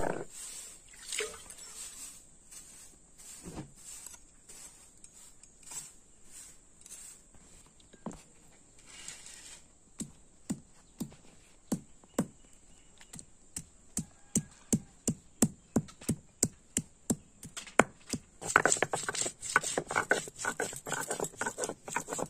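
Hand-held stone knocking on a flat stone grinding slab (sil-nora) as garlic cloves are crushed on it. After a loud knock at the start and scattered knocks, the taps settle into a steady beat of about two to three a second, then quicken into rapid grinding strokes near the end.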